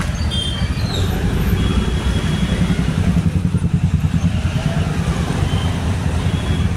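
A motorcycle or scooter engine runs at low speed in slow city traffic, heard from the rider's seat as a steady low rumble that throbs more strongly about three to four seconds in. The noise of surrounding traffic runs underneath it.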